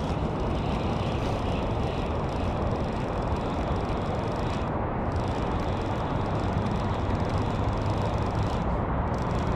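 Steady low rushing noise with no distinct strokes, while a low-profile baitcasting reel is cranked steadily to retrieve a deep-diving crankbait.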